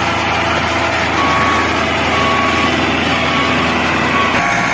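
Miniature model truck or tractor motor running steadily, with a short high beep repeating about once a second. The low hum changes abruptly near the end.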